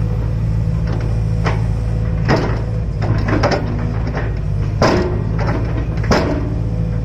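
Hydraulic excavator's engine running steadily, with about six sharp metallic clanks and scrapes from the working machine.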